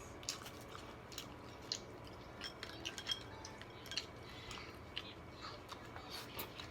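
Seafood being eaten close to the microphone: quiet wet chewing with many small, irregular clicks and cracks.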